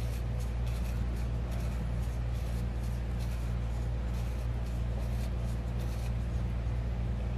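Steady low hum under faint, irregular scratchy ticks of rough metal threads grinding as a part is screwed into a vape box mod.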